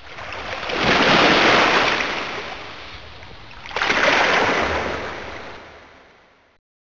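Samsung Anycall SPH-X4200 sound-effect ringtone played from its MMF file: two swells of rushing, surf-like noise. The first peaks about a second in and the second about four seconds in, then it fades and cuts off near the end.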